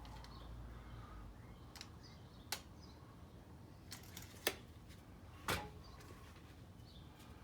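A handful of short, sharp clicks and taps, about five spread over several seconds, from a tape measure and a wooden 4x4 being handled while measuring, over a faint low hum.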